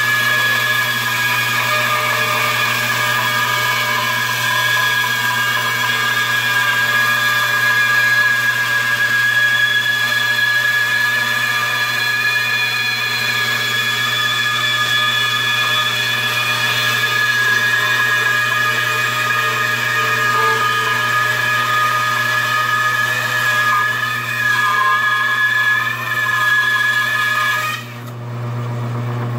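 Benchtop two-speed bandsaw with a 4 TPI ripping blade ripping lengthwise through a pine board, a steady whine from the blade in the wood over the motor hum. Near the end the cut finishes and the saw keeps running with no load, quieter.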